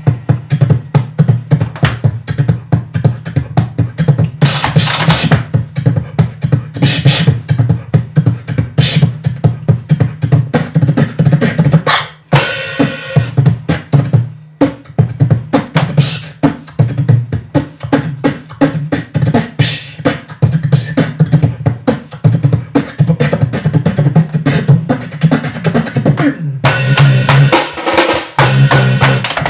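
Beatboxing with a live drum kit playing a fast, driving groove of kick, snare and hi-hat sounds. About twelve seconds in the groove breaks for a short hissing passage and stops dead for a moment before starting again, and near the end a wash of cymbal-like hiss comes in.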